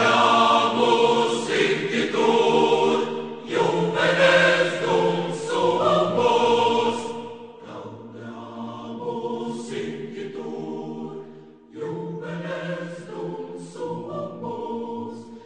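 A choir singing in long held chords. It becomes quieter about eight seconds in and fades out at the end.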